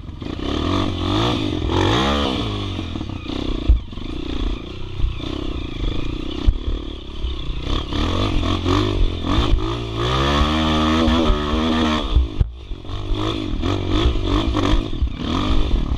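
Dirt bike engine revving up and down as the bike climbs a muddy, rocky trail, with knocks and clatter from the bike over the rocks. A long rising rev about ten seconds in cuts off sharply about two seconds later, then the engine picks up again.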